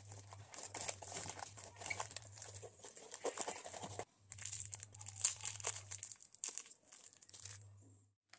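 Cardboard shipping box wrapped in packing tape being torn open and pulled apart by hand: irregular ripping and crinkling of cardboard, with a short pause about four seconds in, stopping shortly before the end.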